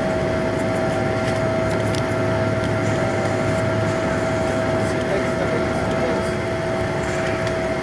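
Steady cabin drone inside a Boeing 777-240ER on the ground with engines at idle: an even noise with a held whine at a few fixed pitches, unchanging throughout.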